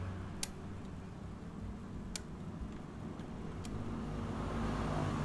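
Steady low hum of a motor vehicle engine running in the background, with three sharp metallic clicks, about a second and a half apart, from tools and clutch parts being handled.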